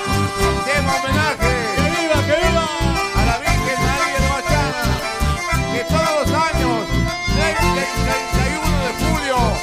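Live Latin American folk dance music led by button accordions, with acoustic guitars and a steady bass beat.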